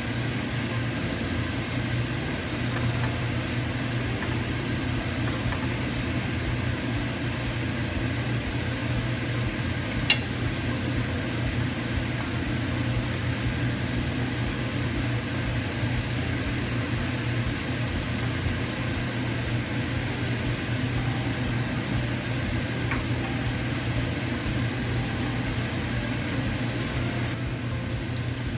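Steady low hum and hiss of a kitchen stove while a pan of tomato sauce simmers on the gas hob. A single sharp clink about ten seconds in, like the wooden spatula being set down on a plate.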